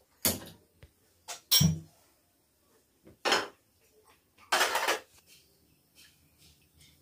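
Steel cookware and utensils clanking and clattering as pans are handled on a gas stove: several separate clanks in the first five seconds, the longest a short clatter about halfway through, then only faint light taps.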